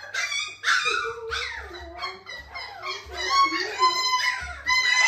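Six-week-old puppies yipping and whining while they play, several short, high-pitched calls a second from more than one pup, overlapping, with a longer held whine about four seconds in.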